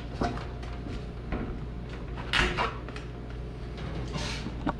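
Protective plastic film being peeled off a white body panel, in intermittent crackling, rustling pulls. The loudest pull comes about halfway through, and another near the end.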